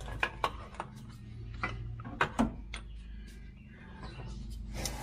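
Clutch jack and truck clutch assembly being handled and repositioned, giving a series of sharp clicks and knocks, the loudest about a quarter second in and a little after two seconds, over a steady low hum.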